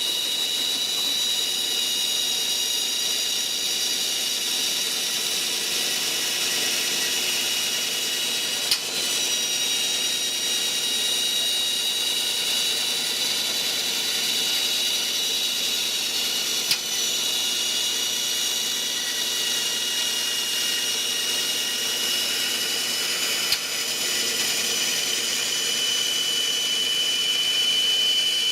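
Power saw motor running steadily with a high whine while cutting wooden pieces to width, with three brief clicks along the way.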